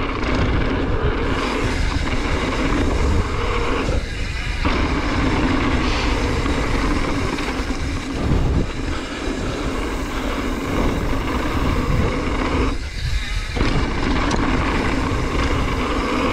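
Steady rushing and rumbling noise from riding a mountain bike trail: wind buffeting the camera microphone over tyre and trail rumble. The upper part of the sound drops out briefly twice.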